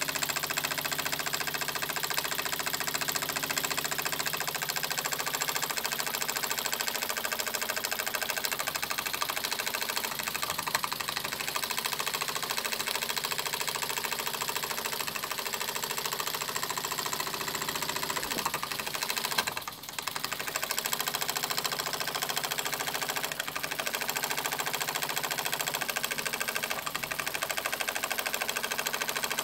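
Cyldon 13/2 model steam engine, a single horizontal brass cylinder driving a red flywheel, running in steam with a fast, steady mechanical rhythm. There is one sharp click about eleven seconds in, and the sound drops briefly about twenty seconds in.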